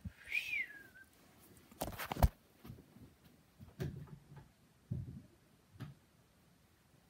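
A brief high whine that rises and falls, then a sharp knock about two seconds in and a few softer thumps of things being handled.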